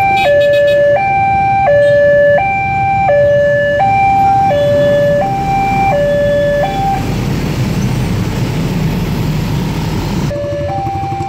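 Railway level-crossing warning alarm, an electronic two-tone signal alternating high and low about every 0.7 s, which stops about seven seconds in as the barrier lifts. Motorcycle and traffic engine noise then swells as the waiting riders move off. The two-tone alarm starts again near the end.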